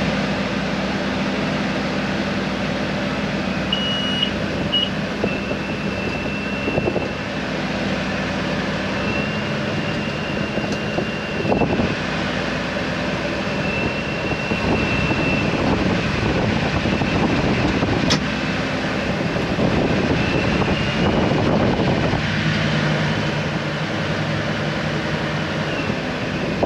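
Diesel tractor engine running steadily under load while a grain cart unloads corn into a truck, with a thin high whine above the engine hum.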